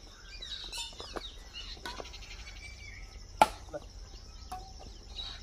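Badminton rackets striking a shuttlecock in a rally: a few sharp hits, the loudest about three and a half seconds in, with birds chirping in the background.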